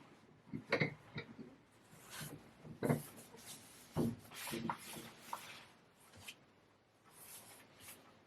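Straight razor scraping through lathered stubble in short, uneven strokes, with a few soft knocks as the blade is handled.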